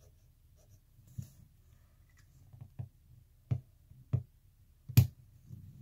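Half a dozen sharp clicks and knocks of plastic Sharpie markers being handled and set down on a wooden tabletop, the loudest about five seconds in.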